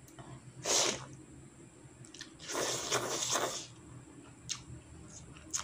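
Slurping soupy instant noodles: a short slurp under a second in, then a longer, louder slurp around the middle, followed by a few small wet mouth clicks of chewing.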